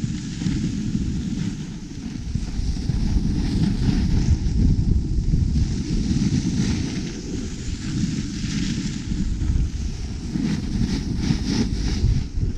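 Wind buffeting the microphone of a camera carried downhill at speed. Over it runs the hiss and scrape of edges carving on packed, groomed snow, which turns choppier near the end.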